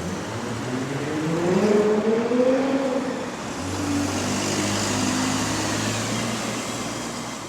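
Car engine accelerating hard, its pitch climbing steeply for about three seconds, followed by a steady, lower engine tone with a low hum.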